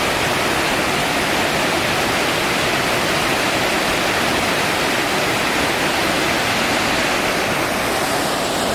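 Shepperd's Dell Falls plunging: a loud, steady rush of falling water with no breaks or changes.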